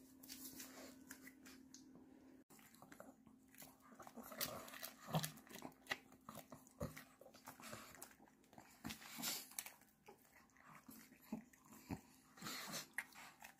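Small dogs crunching and chewing capelin: irregular wet crunches and bites.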